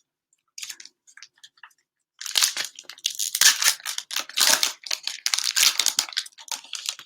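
Plastic cello-pack wrappers of trading cards being torn open and crinkled by hand: a few faint crinkles, then a dense run of loud crackling tears from about two seconds in.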